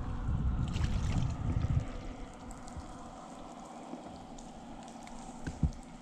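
Wind buffeting the microphone for about the first two seconds, then a quieter steady outdoor hiss with scattered light ticks and water around a small boat, and a single soft thump about five and a half seconds in.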